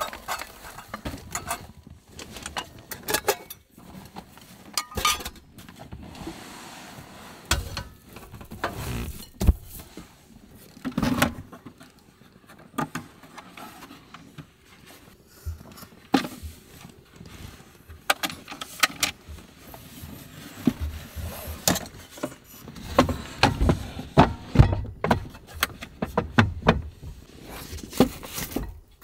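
Irregular knocks and clacks of camping cookware being handled and of a homemade folding wooden table being opened out and set up, with a small wooden support leg fitted under its middle.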